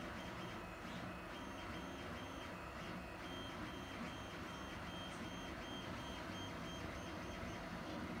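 3D printer at work: short, evenly repeated high whining tones from its stepper motors as the print head moves back and forth, heard for a few seconds in the middle over steady machine noise.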